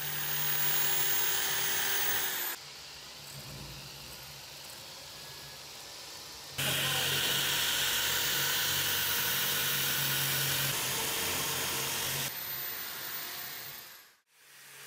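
Handheld rotary tool spinning an abrasive drum against the metal plate of an old lock: a steady motor whine with a grinding hiss. It drops to a quieter level after about two seconds, comes back loud about four seconds later, then fades and stops shortly before the end.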